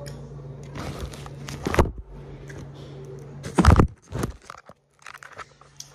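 Crunchy bites into a toasted whole wheat fried-egg sandwich: a couple of loud crunches, the loudest near two seconds in and again near four seconds, over a steady low hum.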